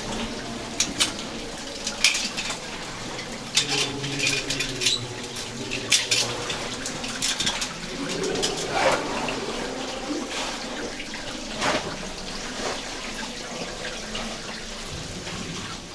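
A caver's metal rope gear clinking and knocking irregularly as they move on the rope through a rock shaft. Underneath runs a steady rushing hiss like running water.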